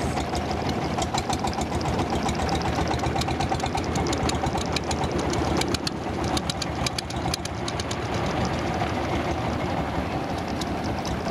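Long-tail boat engine running steadily under way, with a rapid, even knocking chug.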